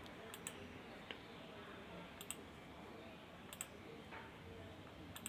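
Computer mouse clicking faintly: four quick double-clicks spaced a second and a half to two seconds apart, over a low room hum.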